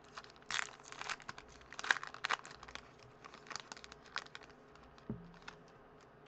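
Foil wrapper of a trading card pack being torn open and crinkled as the cards are pulled out: a quick run of crackling crinkles that thins out after about four seconds, with one soft thump about five seconds in.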